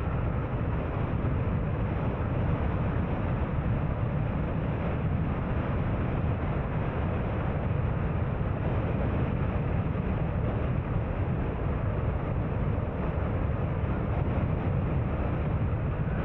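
Car driving: a steady low rumble of road, engine and wind noise.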